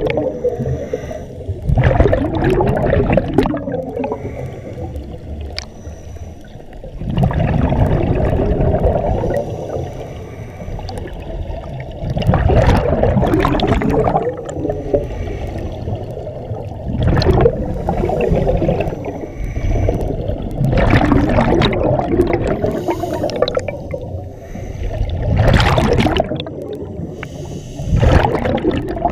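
A scuba diver breathing underwater through a regulator. Every four to five seconds an exhalation sends out a loud gurgle of bubbles, with quieter stretches between the breaths.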